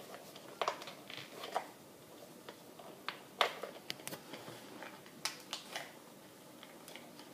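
Scattered light clicks and taps as a glued RC tire and its plastic wheel are handled with gloved hands to work the heat-loosened bead free.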